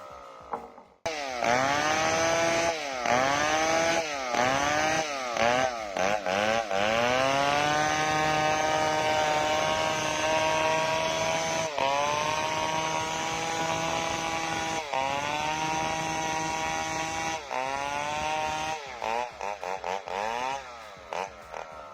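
Handheld chainsaw sawing wood. The engine blips up and down in quick revs for the first few seconds, then holds a high steady speed through long cuts with a few brief dips in pitch, and goes back to choppy blips near the end.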